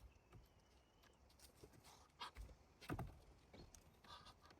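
Near silence, with a few faint knocks and clicks.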